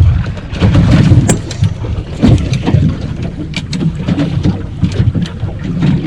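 Small aluminium boat on open water: an uneven low rumble with scattered knocks and slaps, and wind buffeting the microphone.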